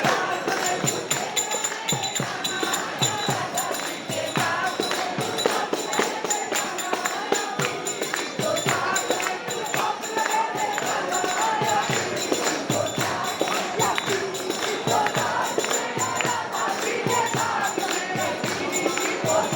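Group singing over rapid, steady hand percussion with jingling metal, like a tambourine.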